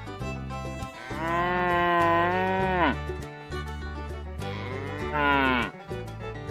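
A cow mooing twice. A long moo starts about a second in and drops in pitch at its end; a shorter one near the end rises and then falls sharply. Steady background music plays underneath.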